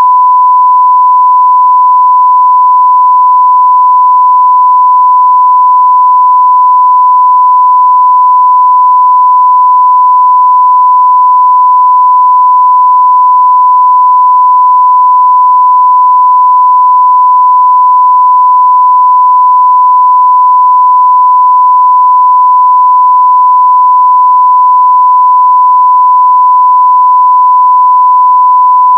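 Loud, steady 1 kHz line-up tone: one unbroken pure beep at a constant level. It is the reference tone that goes with colour bars, used for setting audio levels.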